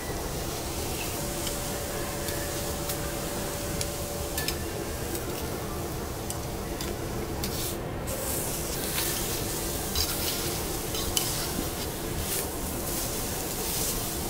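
Lobster meat sizzling on a steel teppanyaki griddle, with scattered light clicks and scrapes of a steel knife and fork against the plate.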